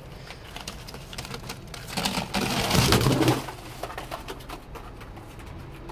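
Two domestic pigeons being let out of their coop: a loud burst of wing flapping about two seconds in, lasting about a second and a half, with scattered taps and scrapes of feet and handling before and after.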